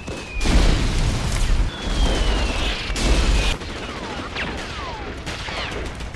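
Artillery bombardment: heavy explosions rumbling for about three seconds, with a long falling shell whistle among them. Then a lower din of battle noise.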